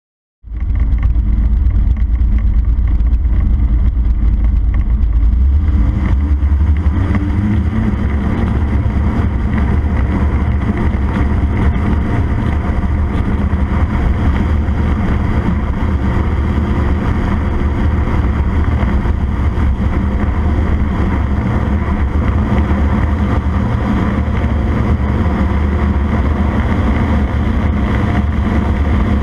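CFM Shadow microlight's engine and propeller running steadily through the take-off run and lift-off. The sound fills out about six or seven seconds in and holds without cutting out.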